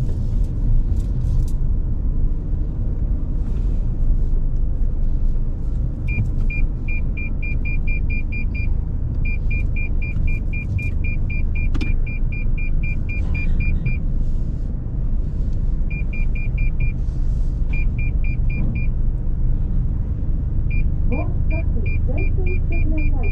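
Steady low engine and road rumble inside a car's cabin, with runs of short high beeps at about four a second that start and stop several times: the car's parking sensors warning of nearby walls as it pulls into a car lift.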